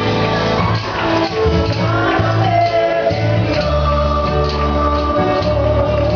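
A live church worship song in Spanish: a voice sings over band accompaniment with a steady beat, holding one long note from about two seconds in.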